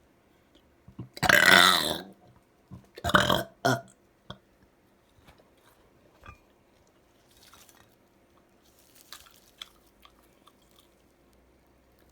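A person belching loudly about a second in, then a second, shorter belch around three seconds in. Faint scattered eating noises follow.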